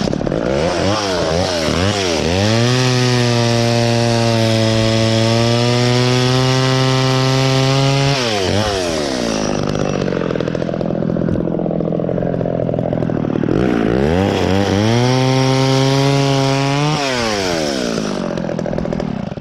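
Echo chainsaw revved to full throttle twice, cutting a branch. Each time the pitch climbs and holds steady, the first run for about six seconds and the second for about three, then falls back to idle.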